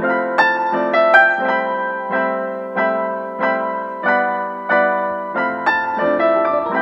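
Background music: an electric piano playing evenly spaced chords, about one and a half a second, with a low bass line coming in about five seconds in.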